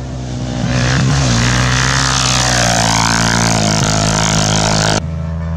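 Off-road rally motorcycle engine at full throttle, loud and close, its pitch sweeping as it passes, then cutting off suddenly about five seconds in.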